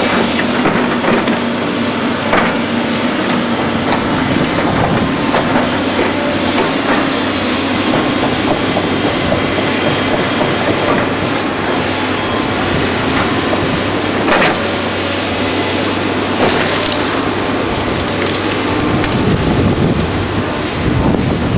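Volvo tracked excavator's diesel engine running steadily while the machine crawls and turns through mud, with scattered clanks and knocks from its steel tracks and the debris they ride over.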